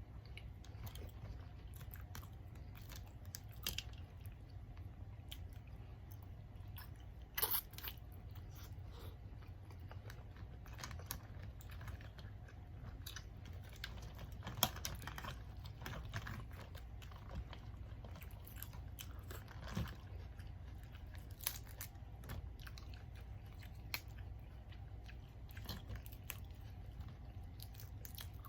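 Close-up chewing and biting on a seafood boil: wet mouth smacks and scattered crunchy clicks, a few louder bites, over a steady low hum.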